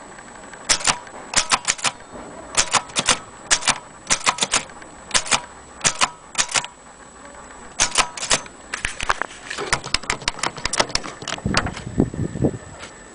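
Vintage Corona portable typewriter being typed on: sharp key strikes in small irregular groups with short pauses, and a heavier, lower rattle near the end.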